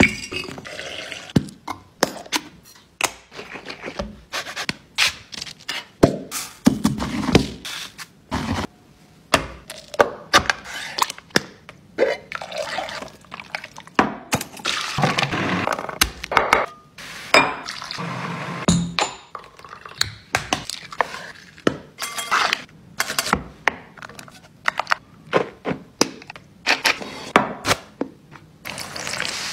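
A quick run of kitchen preparation sounds: glass jars and bottles knocked, clinked and handled, wire-clip lids snapped, with short noisy stretches of rubbing and working between the sharp knocks.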